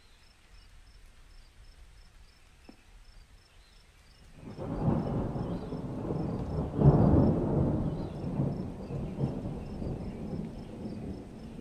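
A rumble of thunder rolls in about four seconds in, swells to its loudest near the middle and slowly dies away, over the steady high chirping of insects.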